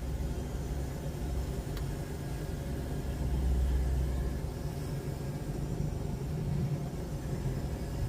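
Steady low rumble of a pickup truck cab, typical of the engine idling, with one faint tick about two seconds in. No lock click comes while both remote buttons are held, the sign that this aftermarket remote has not programmed.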